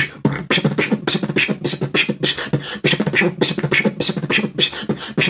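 Beatboxing: a fast, continuous run of vocal drum hits over a low hummed tone.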